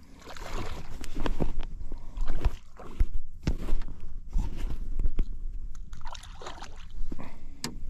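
Water splashing and sloshing in irregular bursts as a snook is held and moved in the water beside a small boat, with a few sharp knocks among the splashes.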